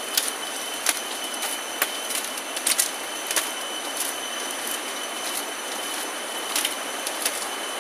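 Steady rush of flowing river water, with scattered sharp clicks and a faint steady high tone.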